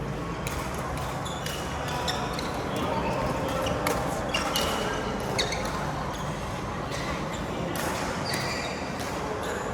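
Badminton rally: a series of sharp racket hits on the shuttlecock, with short high squeaks from shoes on the court floor, in a large echoing hall with voices in the background.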